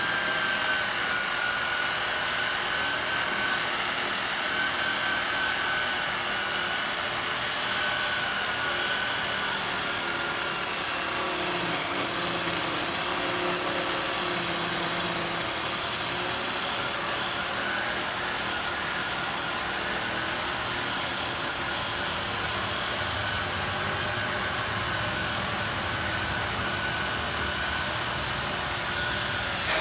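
Virginia Abrasives VA CD3 three-speed handheld electric core drill wet-coring into a stone block, its motor and gearbox running with a steady high whine whose pitch wavers slightly as the bit takes load.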